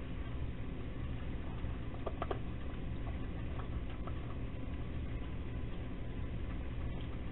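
Raccoons eating dry pet food from metal bowls: a few faint clicks and crunches, a small cluster about two seconds in, over a steady low background hum.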